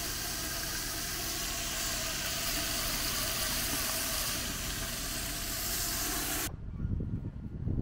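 Water from a hose rushing into a boat's deck fill fitting: a steady, loud hissing rush that cuts off abruptly about six and a half seconds in.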